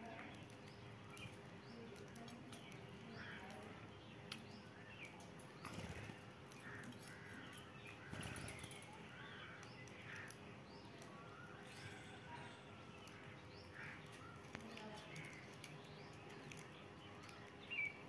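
Faint, scattered short chirps from budgerigars in an aviary cage, over a quiet background.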